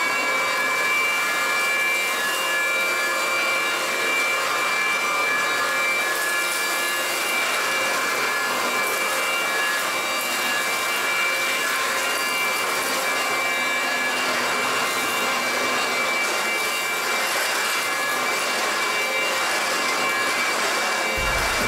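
Dyson DC05 cylinder vacuum cleaner running steadily at full speed: a high motor whine over rushing air as it sucks up grass and dirt.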